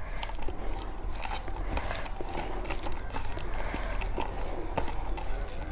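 Close-miked eating: chewing and biting with many small irregular mouth clicks and smacks.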